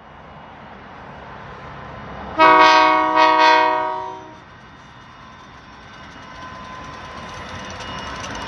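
Train horn blowing a chord for about two seconds, with a brief dip partway through, over the rumble of the approaching train, which grows louder toward the end.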